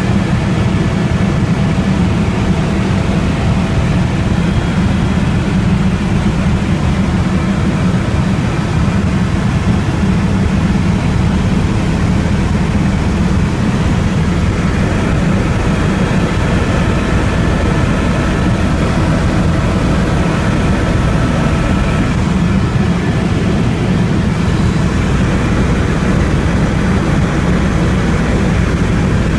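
Helicopter in flight heard from on board: a steady, loud, low drone of rotor and engine that does not change.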